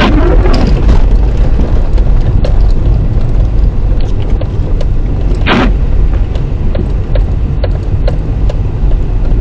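Toyota Camry driving on a snow-covered road, heard from inside the cabin: a loud, steady low rumble of tyres and engine. Light clicks are scattered through it, with one brief, sharper sound about halfway through.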